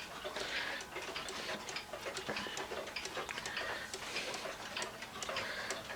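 Small one-day cuckoo clock's pendulum movement ticking steadily, freshly wound and running.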